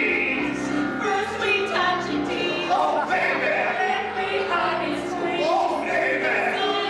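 A small group of voices singing a song together in harmony.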